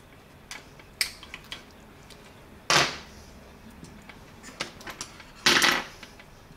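Diagonal cutting pliers snipping away the black plastic at the power-cord end of a professional hair-straightening iron to get at its broken wire: scattered light clicks, with two louder cracks about three seconds in and near the end.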